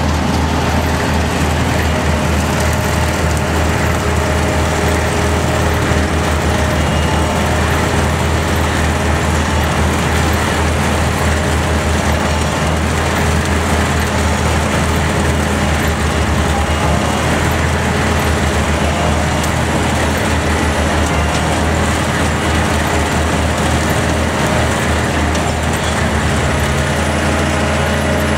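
Grimme Varitron 270 self-propelled potato harvester working: its diesel engine runs steadily with a strong low hum, under a constant rushing machine noise from the harvester. The low hum shifts slightly near the end.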